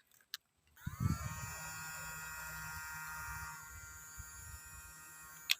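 Small electric motor of a battery-powered toy bubble gun whirring: it spins up with a short rising whine about a second in, runs at a steady pitch, then winds down and fades.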